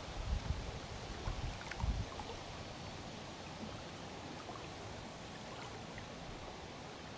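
Wind buffeting the microphone in low rumbling gusts, three in the first two seconds, over a steady hiss of breeze and small water lapping at the shore.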